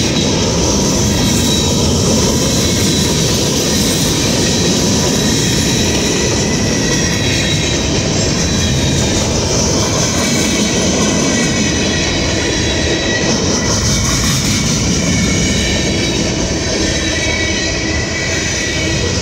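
Freight train cars rolling past on the rails, a steady loud rumble of wheels on track with a faint high-pitched wheel squeal over it.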